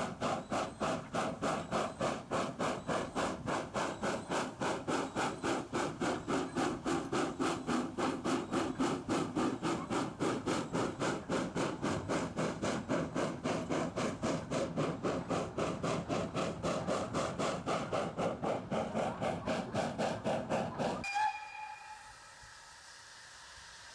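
Saddle-tank steam locomotive working hard with a train of goods wagons: loud, even exhaust beats at about four a second. About 21 seconds in they cut off suddenly, followed by a brief high tone and a steady hiss of escaping steam.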